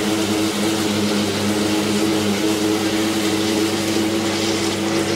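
Tabletop wet grinder running steadily: its motor hums while the stone rollers turn in the steel drum, grinding soaked idli rice into batter.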